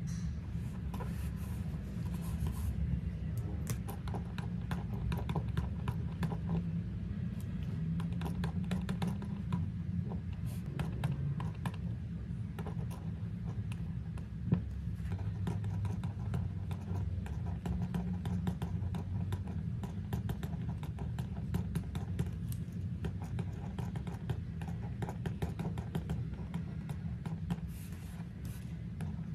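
A pen writing on a paper planner page: a run of small scratches and ticks as the nib makes short strokes, over a steady low hum.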